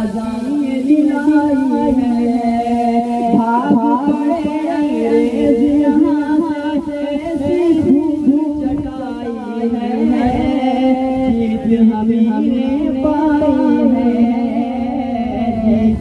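A boy singing a patriotic Urdu nazm into a microphone, a continuous wavering melodic line with few breaks.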